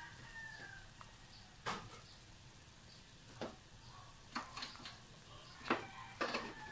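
Chicken stock boiling in a wok, a faint bubbling with several short, sharp ticks scattered through it.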